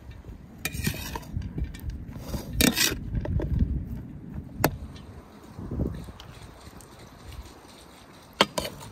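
Metal skimmer spoon scraping and clinking against an enamel bowl while scooping rice, a few short scrapes followed by single sharp clicks. Low wind rumble on the microphone throughout.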